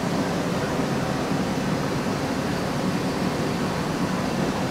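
Okuma Howa 2SP V55 vertical CNC lathe running with its table spindle turning: a steady, even mechanical rushing noise, mostly low in pitch.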